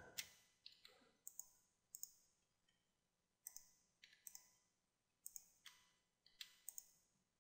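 Faint, scattered clicks of a computer mouse, several in quick press-and-release pairs, as edge loops are selected and deleted.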